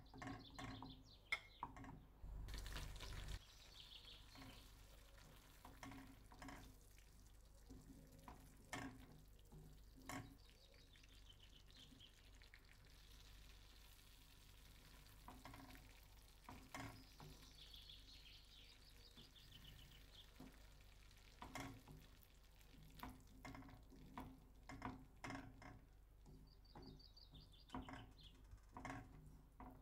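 A wooden spoon stirring thick tomato sauce in a nonstick frying pan as it simmers: faint scrapes and scattered light taps against the pan.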